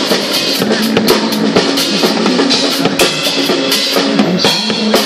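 Drum kit played along with a recorded pop song, with bass drum and snare hits in a quick steady rhythm over the backing track.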